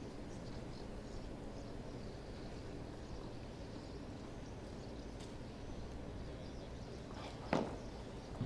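Padel ball being struck during a rally, with faint hits and then one sharp, loud racket strike on the ball about seven and a half seconds in, over a hushed crowd's low background murmur.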